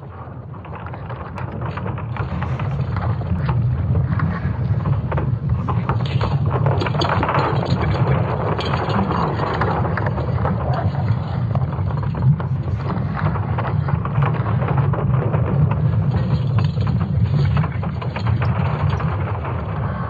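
Sonified recording of Earth's electromagnetic field: a dense, continuous crackling over a low, steady rumble, fading in over the first few seconds and then holding level.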